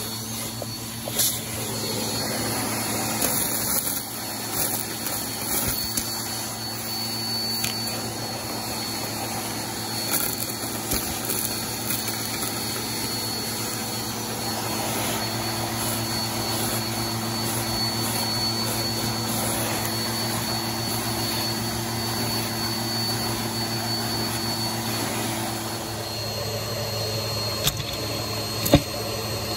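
Vacuum cleaner running steadily with a high whine, sucking small debris through its crevice tool, with scattered clicks and rattles as sequins, beads and pull tabs go up the tube. Near the end a few sharp clacks as plastic bottle caps are sucked in.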